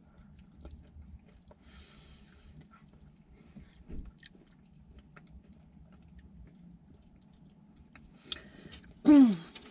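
Quiet chewing of a chocolate-covered cream candy with cookie pieces, with small mouth clicks. Near the end, a short voiced sound falling in pitch.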